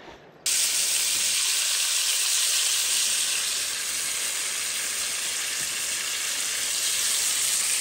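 Meat sizzling in a frying pan over a flame, a steady loud hiss that cuts in suddenly about half a second in.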